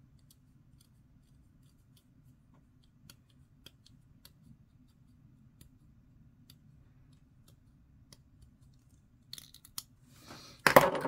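Faint, scattered ticks of a hobby knife blade scraping and trimming a small plastic model part. Near the end, a short, much louder clatter of handling.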